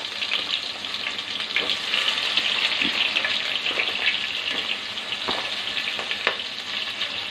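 Sliced onions sizzling in hot oil in a pot, fried to be browned, with a few crackles.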